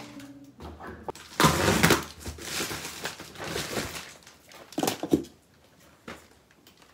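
Packaging rustling and crinkling as a grocery delivery box and its insulated plastic bag are unpacked by hand, in irregular bursts, the loudest about a second and a half in.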